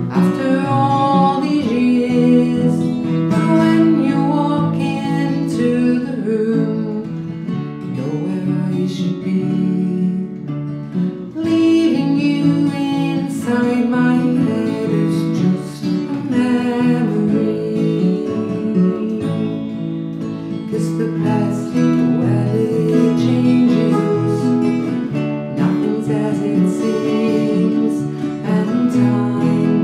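Two acoustic guitars strummed and picked together in a slow folk song, with a woman singing over them.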